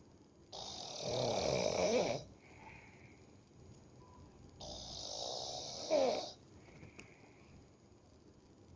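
A sleeping person snoring heavily: two long snores about four seconds apart, each growing louder toward its end, with quieter breathing between them.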